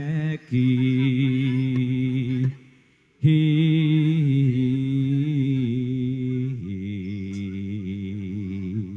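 A singer chanting a slow Javanese song, unaccompanied, in long wavering held notes. The voice breaks off twice briefly, then drops to a lower held note before stopping near the end.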